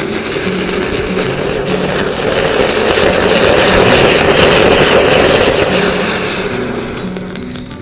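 Flower pot (anar) fountain firework burning inside a green coconut, giving a steady rushing hiss as it sprays sparks. The hiss swells to its loudest midway and eases off near the end, with background music underneath.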